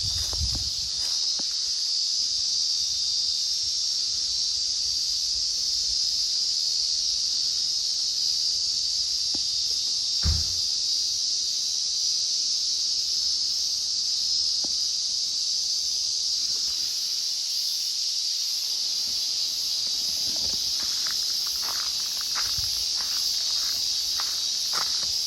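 Cicadas singing in a steady, unbroken high-pitched drone, with one dull thump about ten seconds in and a few light knocks near the end.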